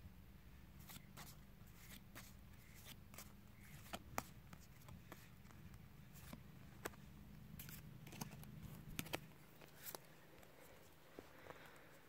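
Battle Spirits trading cards being handled and slid one behind another: faint, scattered sharp card clicks and soft rustles over a low steady hum.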